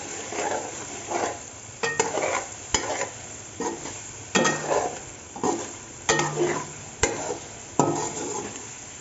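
A spoon stirring chicken meatballs in a thick masala in a metal pan, clinking and scraping against the pan about once a second at an uneven pace, with the masala sizzling as it fries.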